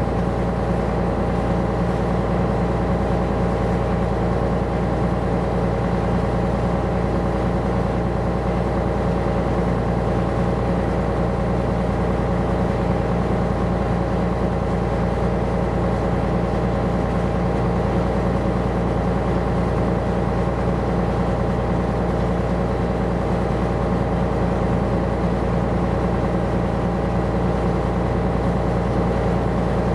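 Coastal tanker's diesel engine and machinery running steadily underway: a constant low hum with several steady tones, unchanging throughout.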